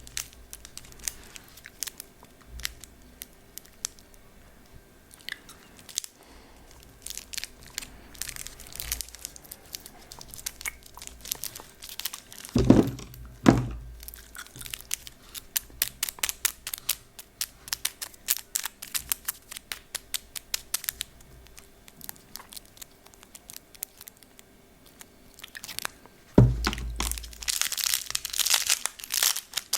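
Close-miked ASMR lollipop mouth sounds: a stream of sharp wet clicks and crackles. There are loud bursts near the middle, one more shortly before the end, then a dense run of rapid crackles.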